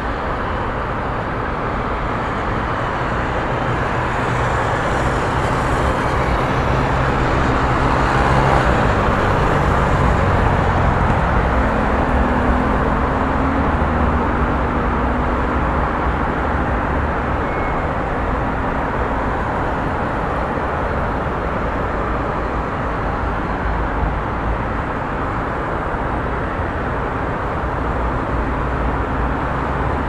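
Busy street traffic: a steady wash of vehicles running past with engine hum underneath. It grows somewhat louder for a few seconds around the first third as traffic passes closer.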